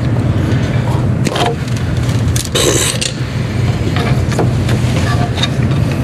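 Clicks, taps and a brief scraping rustle of plastic air-line tubing being handled and routed under a pickup truck, over a steady low hum.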